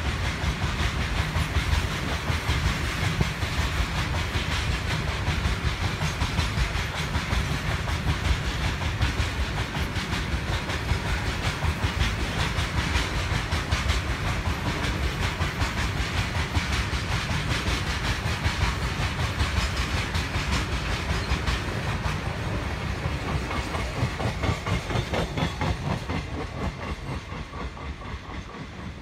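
Goods train of open-top freight wagons rolling past, wheels clattering on the rails over a steady low rumble. The clatter fades over the last few seconds as the wagons draw away.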